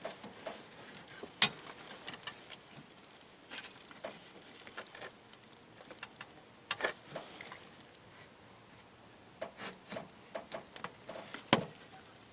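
Scattered clicks, taps and light scraping of a clip tool being worked in behind a cardboard-backed car door panel while feeling for its plastic push-pin clips, with a few sharper knocks spread through.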